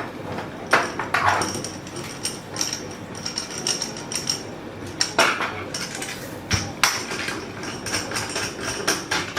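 Repeated clinks and knocks of metal hardware being handled as a stitching-pony jaw is fitted onto a metal tool holder with an M6 bolt, with a faint high metallic ring between some of the knocks.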